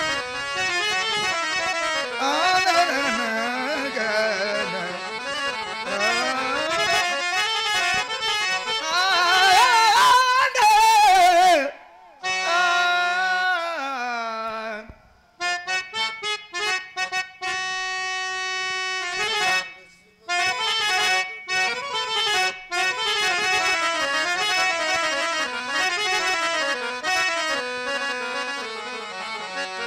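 Harmonium-style reed melody from the drama's accompanying band, an ornamented instrumental interlude between sung verses. About halfway through it falls away in a descending run, then plays short held notes broken by pauses before the melody resumes.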